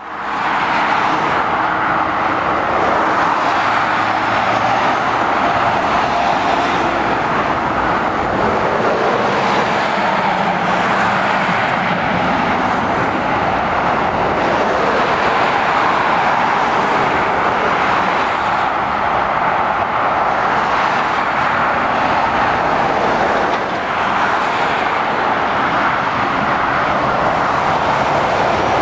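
Steady road-traffic noise from cars and articulated lorries passing below on a busy trunk road: a continuous even rush of tyres and engines.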